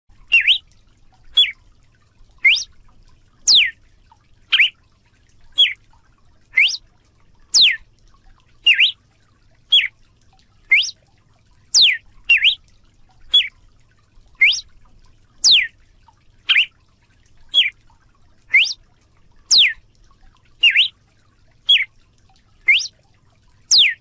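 Galo-de-campina (Paroaria cardinal) singing: clear whistled notes about one a second, some rising and some falling steeply, in a short four-note phrase repeated over and over.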